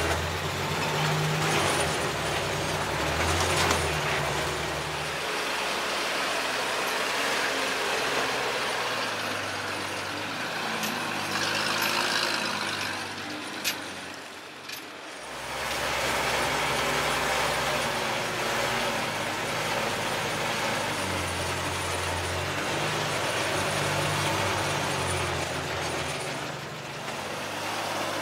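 ZIL-164 dump truck's six-cylinder petrol engine running as the loaded truck drives, its pitch stepping up and down. The sound dips briefly about halfway through, with two sharp clicks.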